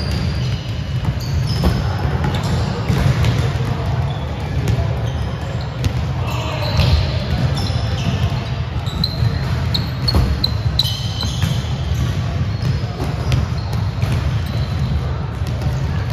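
Volleyballs being struck and bouncing on a gym floor, with scattered sharp impacts echoing in the hall. Short high squeaks come and go, clustered a little after the middle, over a steady low rumble and background voices.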